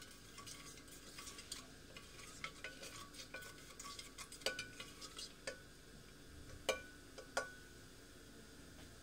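Cumin seeds crackling in hot oil in an aluminium pressure cooker while a spatula stirs them, scraping and clinking against the pot with a short metallic ring. Two louder clinks come near the end, then only a faint sizzle.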